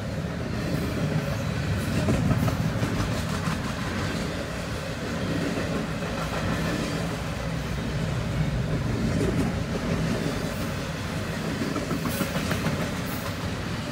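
Double-stack intermodal freight train's container-laden well cars rolling past at steady speed: a continuous low rumble with wheels clicking over the rail.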